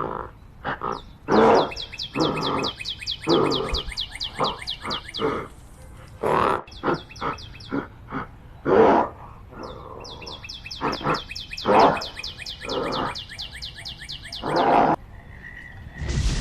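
Wild animal calls: a series of short, repeated grunting calls, overlaid by two runs of rapid high-pitched chirping. Near the end the calls stop and a steady rushing noise begins.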